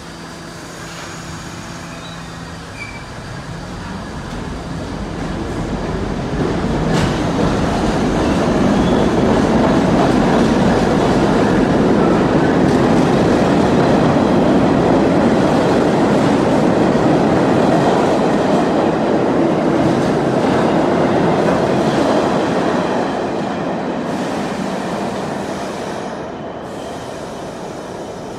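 R68 New York City subway train pulling out of the station. Its traction motors whine up in pitch over the first few seconds as it accelerates. Then the rumble of the passing cars grows loud and fades away in the last few seconds.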